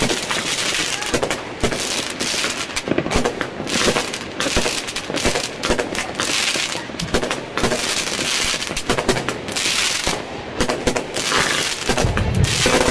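Fireworks going off in a dense, continuous barrage of bangs and crackling, with a heavier boom near the end.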